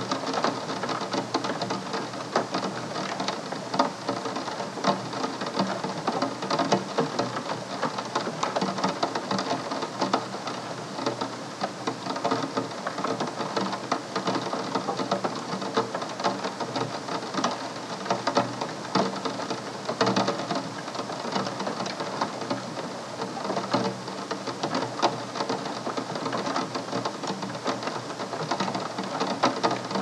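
Steady rain falling, a dense patter of many small drop impacts with no let-up.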